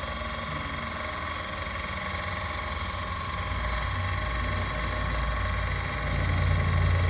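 A 12-volt electric car jack's motor running steadily as it lifts a car, with a constant whine. A deeper hum grows louder about four seconds in and again near the end.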